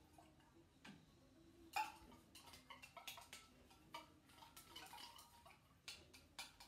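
Faint, irregular clicks and taps of a thin utensil knocking and scraping against a small metal can of coconut milk as it is emptied into the pot, with one sharper knock about two seconds in.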